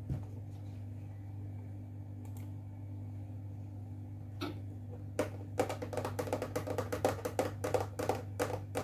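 Typing on a computer keyboard: a quick run of key clicks starting about five seconds in, after a couple of single clicks, over a steady low hum.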